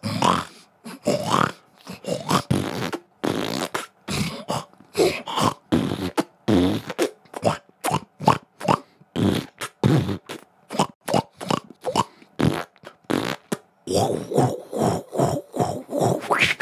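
A person's voice making rapid, rhythmic beatbox-style mouth sounds, a few short bursts a second, quickening near the end.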